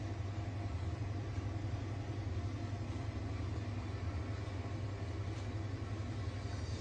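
Road train truck driving at speed: a steady low rumble of engine and road noise, heard from a camera mounted on the outside of the cab.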